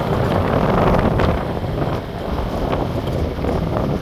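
Steady rain with wind buffeting the microphone, a few faint sharp ticks over the rush.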